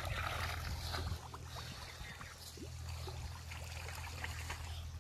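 Water trickling and splashing faintly over the steady low hum of a running machine.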